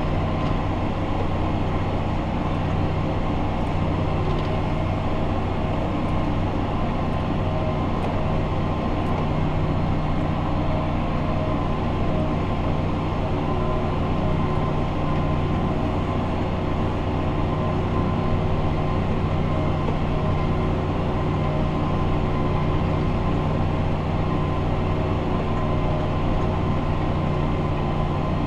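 Fendt 828 Vario tractor's six-cylinder diesel engine running steadily, heard from inside the cab while it tows a compost spreader across the field: a constant low drone with a faint steady whine on top.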